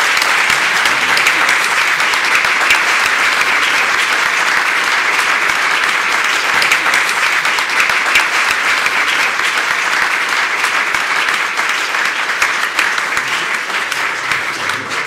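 Audience applauding, a steady clapping that eases off a little near the end.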